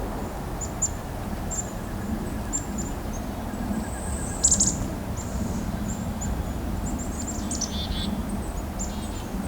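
Black-capped chickadees of a mixed winter feeding flock calling all around: many short, very high, thin notes, with a louder call about four and a half seconds in and a quick run of calls near the end.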